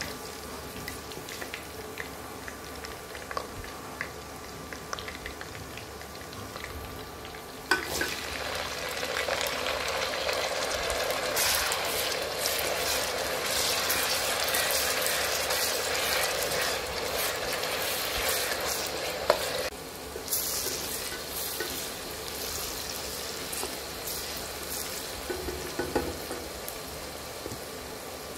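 Oil sizzling in a pot with a wooden spatula stirring through it. About eight seconds in, sliced onions go into the hot oil and the frying becomes suddenly louder and crackly. It drops back abruptly a little before twenty seconds in and carries on as a softer sizzle.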